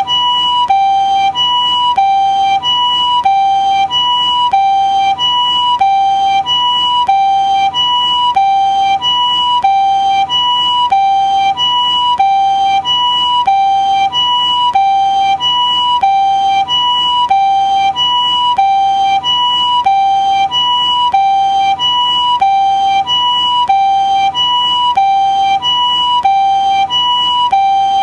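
Japanese ambulance siren sounding its two-tone "pee-po" call, a higher and a lower steady tone alternating evenly about every half second, repeating without a break.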